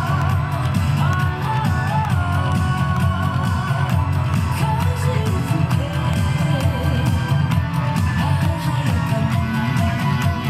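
Yosakoi dance music played loudly over loudspeakers: a wavering melody line over a steady, heavy beat, running without a break.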